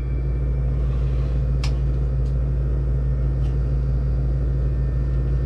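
A loud, steady low hum that sets in abruptly just before and holds unchanged, with a few faint light clicks on top.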